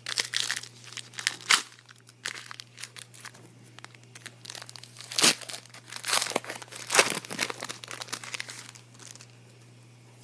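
Foil trading-card pack wrapper being torn open and crinkled: a run of irregular crackles and rips, loudest about five to seven seconds in, dying away shortly before the end.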